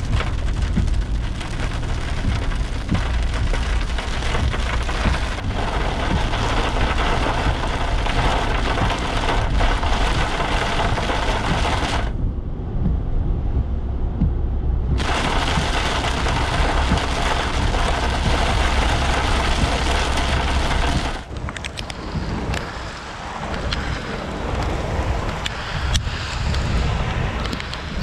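Heavy rain pelting a car's roof and windshield while driving, over a low road rumble. About halfway through, the rain noise cuts out for about three seconds as the car passes under an overpass, then returns. Near the end the low rumble drops away and the rain thins to a lighter patter.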